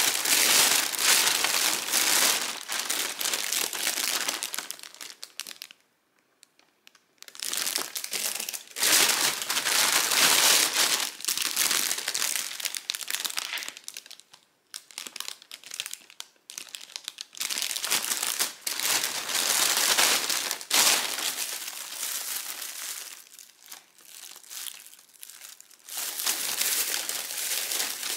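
Thin plastic bakery bags and cellophane pastry wrappers crinkling as they are handled and opened, in repeated bursts with a short break about six seconds in.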